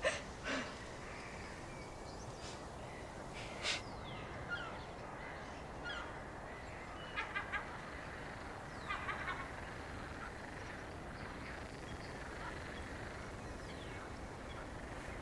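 Steady quiet outdoor background with a few short bird calls: one about four seconds in, three quick calls a little past seven seconds, and a short cluster around nine seconds.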